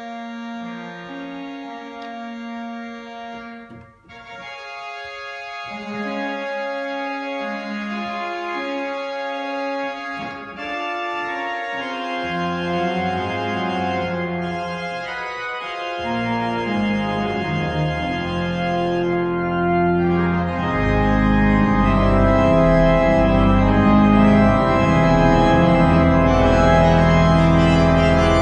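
Allen digital church organ playing held chords on the manuals, growing louder; deep pedal bass notes come in about twelve seconds in, and the full sound swells further from about twenty seconds.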